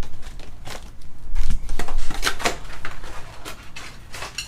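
A quick run of clicks, taps and short rustling scrapes from trading cards and their packs being handled and shuffled on a table, busiest about halfway through.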